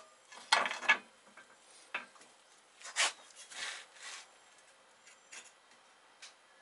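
Steel control arm and press plates being shifted and set on the bed of a shop press: a few clanks and scrapes, the loudest about half a second in and again around three seconds, with lighter knocks and rubs after.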